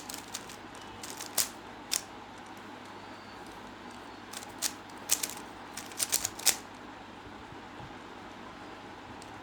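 3×3 Rubik's cube being turned by hand: sharp plastic clicks as the layers snap round, a few single turns in the first couple of seconds, then a quick run of turns about five to six and a half seconds in.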